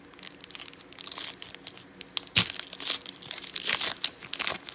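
A foil trading-card pack being torn open and crinkled by hand, with irregular crackling rustles and a sharper rip about halfway through.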